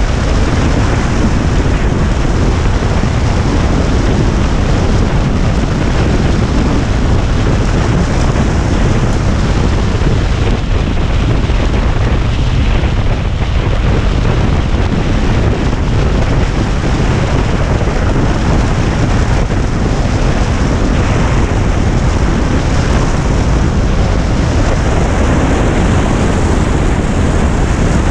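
Ride noise of a Suzuki V-Strom motorcycle at road speed, mostly a steady, loud wind roar on the action camera's microphone.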